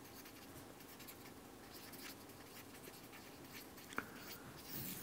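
Felt-tip marker writing on flip-chart paper: faint, light scratchy strokes, with one short sharp tick about four seconds in.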